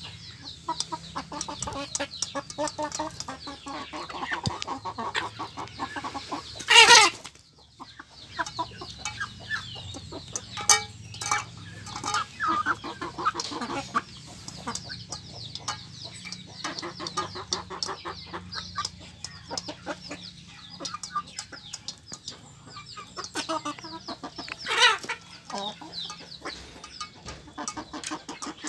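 A flock of free-range village chickens clucking and squabbling noisily while competing for feed, short overlapping calls coming thick and fast. Two louder, longer calls stand out, one about a quarter of the way in and one near the end.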